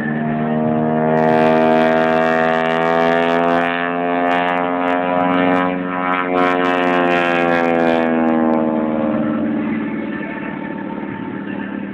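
Aerobatic airplane's engine droning through a manoeuvre: its pitch rises over the first few seconds, then slides back down as the sound fades toward the end.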